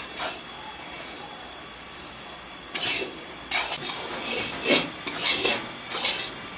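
Freshly ground rice flour dry-roasting in a hot kadai, with a steady hiss. From about three seconds in, a spatula stirs and scrapes it round the pan in repeated short strokes.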